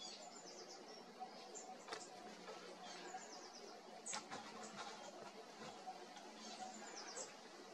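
Faint, thin, high-pitched bird calls in quick runs of several short notes, heard three times, over quiet natural ambience, with a couple of soft clicks.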